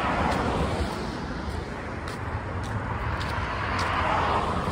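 Street traffic passing: a steady rushing noise that starts suddenly and swells again about four seconds in as another vehicle goes by.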